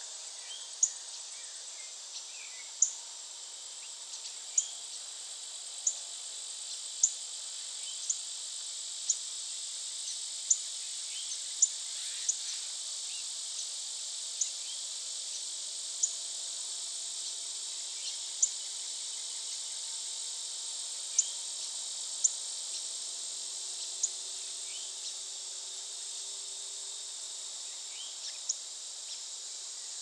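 A steady high insect chorus, with short, sharp high chirps repeating roughly once a second and faint scattered calls beneath.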